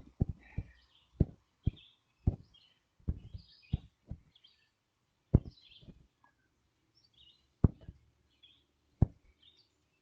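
A dozen or so irregular dull knocks and thuds, coming close together in the first few seconds and then only every second or two, with small birds chirping throughout.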